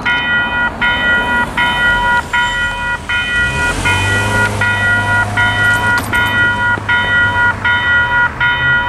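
Western Cullen Hayes Type 4 electronic crossing bell ringing steadily at a railroad grade crossing, a little over one and a half strokes a second, each stroke a ringing tone with a short gap between. A car drives past over the crossing about four seconds in, with a sharp click near six seconds.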